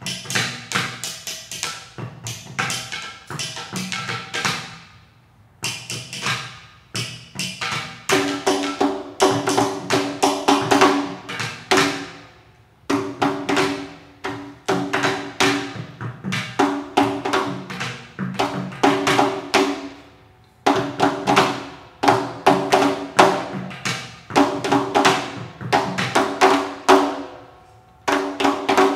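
Hand-made ceramic percussion instruments (clay pots, bowls and tubes) struck in fast rhythmic patterns. From about eight seconds in, two ringing pitches repeat through each phrase, and the playing breaks off briefly about every seven or eight seconds.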